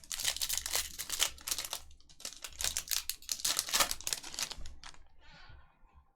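Foil trading-card pack wrappers crinkling and tearing as packs are ripped open and handled, a dense run of crackles that fades to a fainter rustle about five seconds in.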